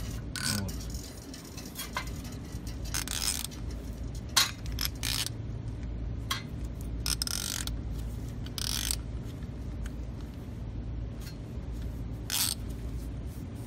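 Ratchet wrench clicking in short runs, with metal tool noises, as a stud-driver socket threads an exhaust-manifold stud into the cylinder head. A low steady hum runs underneath.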